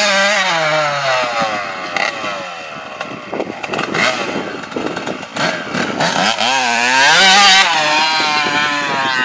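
Small blue Yamaha dirt bike engine revving up and down as it rides over rough grass. Its pitch falls early, then climbs to a loud, high rev about seven seconds in before easing off.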